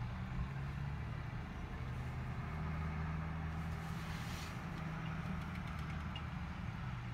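A vehicle engine idling steadily, a low even hum, with a brief hiss about four seconds in.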